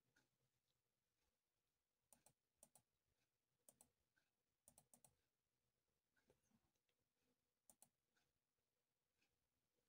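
Near silence, with a few very faint, brief clicks scattered through it.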